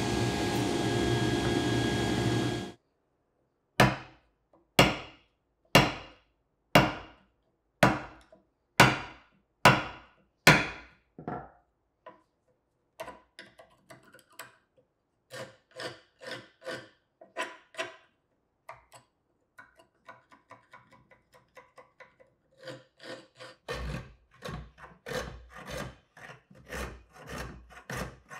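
Table saw running as it cuts into the end of an oak board, stopping abruptly. Then about eight sharp knocks roughly a second apart, a chisel paring and scraping oak, and quick, short strokes of a metal shoulder plane trimming a tenon.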